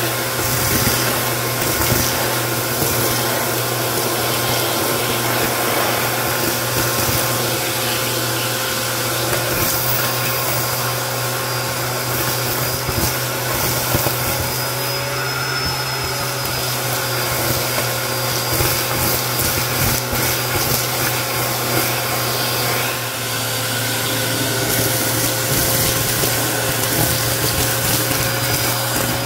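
Bissell Helix vacuum running steadily with its crevice tool on carpet, a constant motor whine under many crunching clicks and rattles as nut shells, grit and small beads are sucked up the hose.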